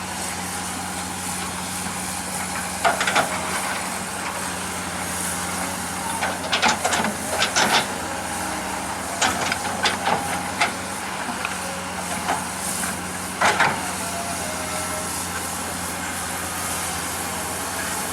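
Heavy equipment's diesel engine running steadily, with sharp metallic clanks coming in clusters every few seconds through the middle.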